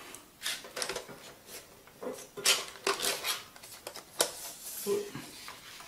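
Hands handling a tin of Prismacolor colored pencils, lifting the top pencil tray out of the metal tin: irregular scraping and rustling with light clicks and knocks of tray against tin and loose pencils.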